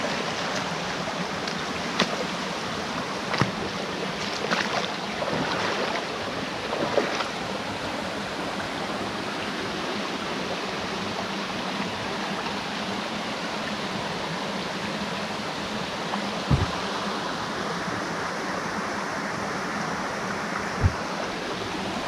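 Shallow forest stream babbling steadily over stones and pebbles. A few brief knocks and clicks sound in the first several seconds, and two short low thumps come later.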